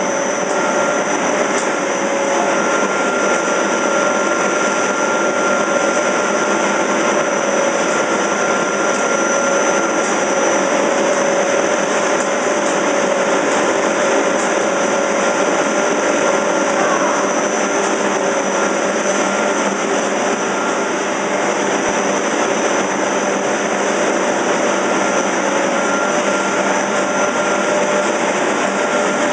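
Pet food extruder production line running: electric motors driving the screw feeder and extruder, a loud, steady mechanical whine and hiss with constant tones that does not change.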